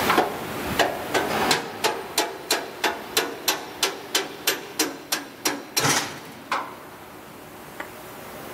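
Steel-headed hammer striking a steel panel on a combine harvester, a steady run of about fifteen sharp metal blows at about three a second, stopping about six and a half seconds in.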